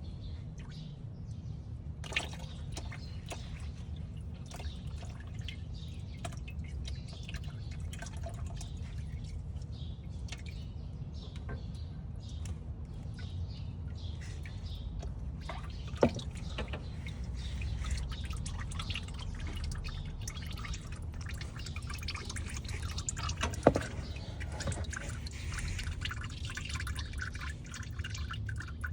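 Light clicks and taps of hand tools and parts being handled, scattered and irregular over a steady low hum, with two sharper knocks, one about halfway through and one later on.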